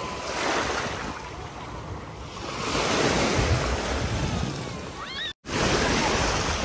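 Small sea waves washing in the shallows, swelling twice, with wind buffeting the microphone. The sound drops out for a moment about five seconds in.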